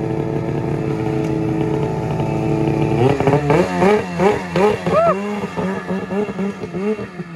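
Two-stroke Ski-Doo snowmobile engine idling steadily, then from about three seconds in revved in quick short bursts, its pitch rising and falling two or three times a second as the sled pulls away.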